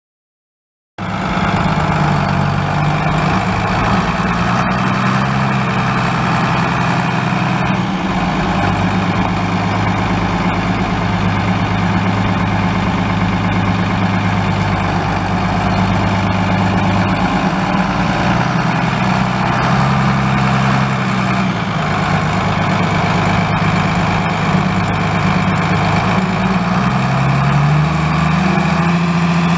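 Diesel engine of a 2002 New Holland TM125 4WD tractor running steadily, its pitch shifting up and down a few times. It comes in suddenly about a second in.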